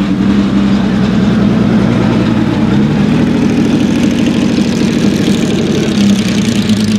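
Porsche 917K's flat-12 racing engine idling steadily.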